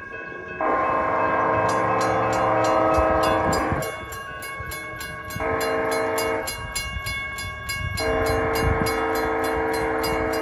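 Amtrak locomotive's multi-tone air horn sounding the grade-crossing warning: a long blast, a short blast, then another long blast, the end of the standard long-long-short-long crossing signal. Under it, a railroad crossing warning bell rings at about four strikes a second.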